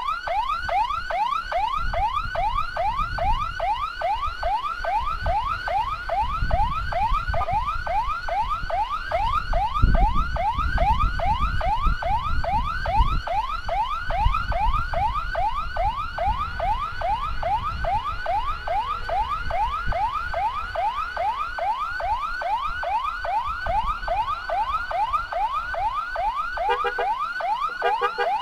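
Escort vehicle's electronic siren on a fast yelp, rising sweeps repeating about three to four times a second, each dropping sharply back before the next. A low rumble runs underneath, loudest about ten seconds in, and the siren pattern briefly breaks and changes near the end.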